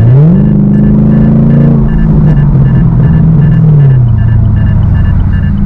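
Gen 6 Camaro SS's 6.2-litre V8 exhaust, with the secondary catalytic converters removed, as the engine revs up quickly right at the start. It holds the higher revs, then drops in two steps, about two seconds and four seconds in, to a lower steady run. A steady repeating beep sounds along with it.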